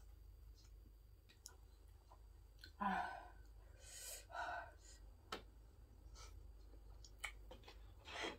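A person eating with chopsticks: soft chopstick clicks and small mouth sounds, with two breathy exhales about three and four seconds in, then sharp clicks toward the end.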